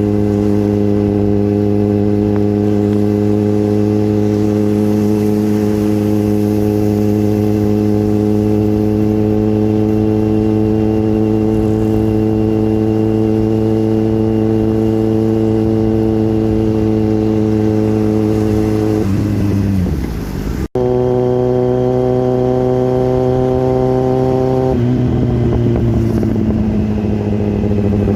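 Kawasaki Z900 inline-four engine running at a steady cruising speed. About two-thirds of the way in the revs fall away as the bike slows. After a sudden cut the engine is steady again, with a change in engine note a few seconds before the end.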